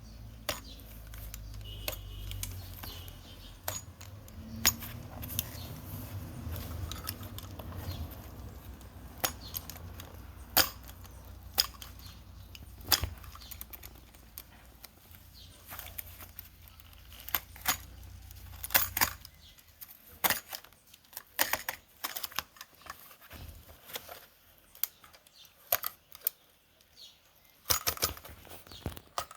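Irregular sharp clicks, taps and metallic clinks of a cobbler's hand tools working on a shoe. A low steady hum underneath stops about two-thirds of the way through.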